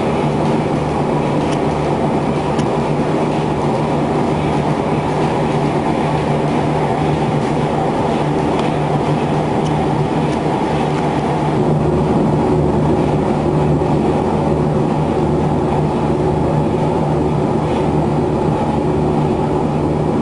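Mill steam engine running steadily: a loud, even mechanical din with a constant low hum underneath.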